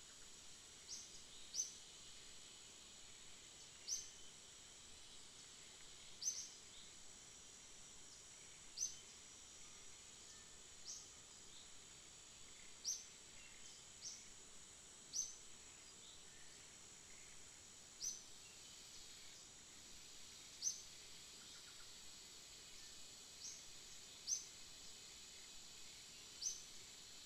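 Faint outdoor ambience: a steady high-pitched insect drone, with a bird's short high chirp repeated every one to two seconds.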